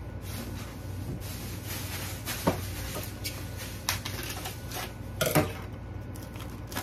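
Plastic meat packaging being handled: cling wrap rustling and crinkling as a chop is unwrapped from its foam tray and laid on a wire cooling rack, with a few sharp light taps, the clearest about two and a half and five seconds in. A steady low hum runs underneath.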